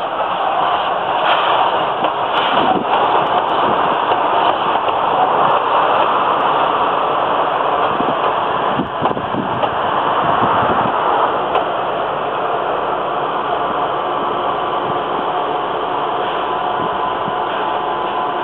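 An 8620-class steam locomotive and its passenger coaches running past close by: a steady, loud rush of running noise with scattered knocks from the wheels and running gear. It eases a little in the second half as the coaches roll by.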